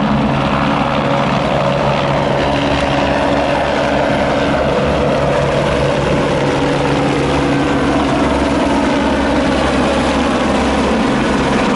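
Light helicopter flying low and close past, its rotor and engine sound loud and steady throughout.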